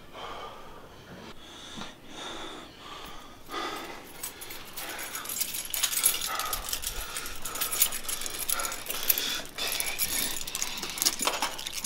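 A person breathing hard with wheezy gasps, then from about four seconds in a bunch of keys jangling and rattling in quick, uneven clicks that grow louder.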